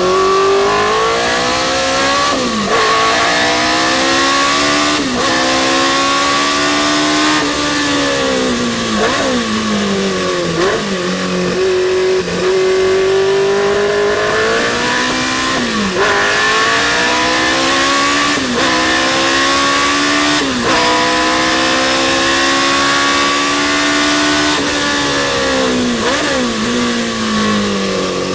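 Historic sports racing car engine at full racing revs. The pitch climbs through the gears and drops sharply at each shift, with falling sweeps as it slows and shifts down, repeating lap-style over a steady rush of wind and road noise.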